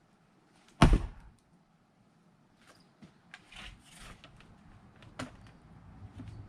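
An axe splitting firewood: one heavy thunk of the blade into the log about a second in. Fainter knocks and rustling follow.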